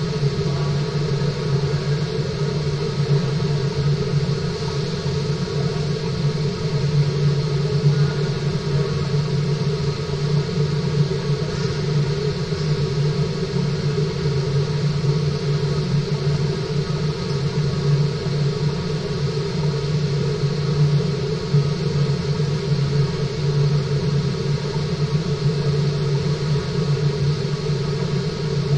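Steady low machine hum with an even rush of water over it, the constant running of a fish-farm tank's water system heard underwater.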